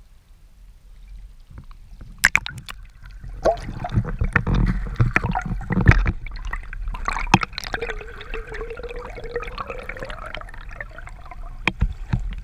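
After a quiet start, a few sharp knocks, then water gurgling and sloshing around a camera as it is dunked into a river, with scattered knocks and clicks.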